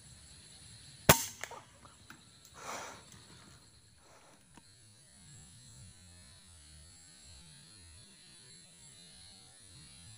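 A single air rifle shot, one sharp crack about a second in, followed by a few faint clicks and a short, softer rush a second and a half later.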